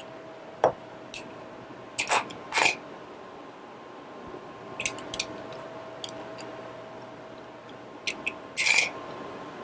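Handling a small plastic oil bottle and cutting the tip off its nozzle: a sharp click, two short louder snips a little over two seconds in, then scattered light clicks. A faint steady hum runs underneath.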